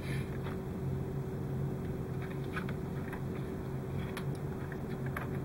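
Faint scattered ticks and rustles of thin LED wire leads being handled and pushed into place on a plastic model hull, over a steady low hum.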